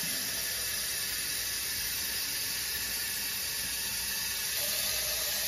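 Cold water running steadily as it is poured to fill a pressure cooker's stainless inner pot up to the max fill line.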